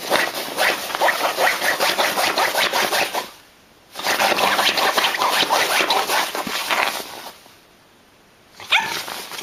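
Dog whimpering and yipping in rapid, muffled bursts: two long bouts of about three seconds each with a pause between, and a short burst near the end.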